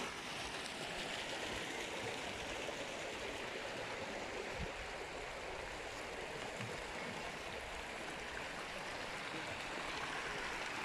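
Water gushing from PVC inlet pipes into concrete trout-farm raceways, a steady splashing rush.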